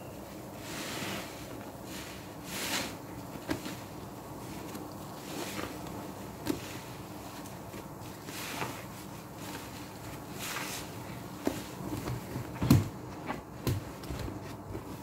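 Soapy, foam-soaked sponges squeezed and squished by hand in a plastic tub of laundry-liquid suds: soft wet squelches every two or three seconds, with a few sharp knocks in the last few seconds, one of them the loudest sound.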